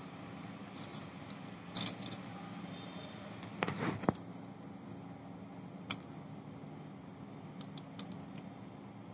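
Light metal clicks and clinks from a steel tool and the parts of a tractor starter motor being handled during reassembly, with a short scraping rattle about four seconds in and a few small ticks near the end.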